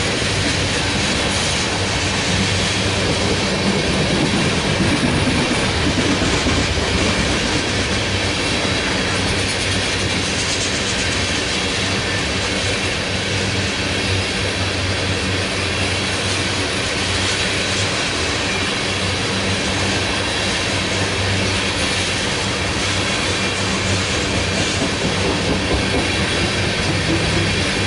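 Freight train of railroad tank cars rolling steadily past, its steel wheels clattering on the rails.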